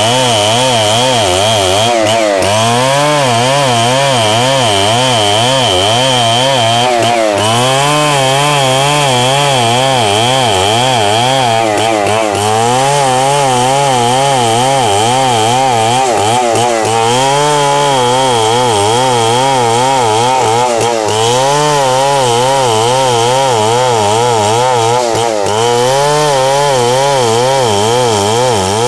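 Stihl 070 two-stroke chainsaw running under load as it rips lengthwise through a log, its engine note wavering and briefly dropping, then recovering, about every four to five seconds.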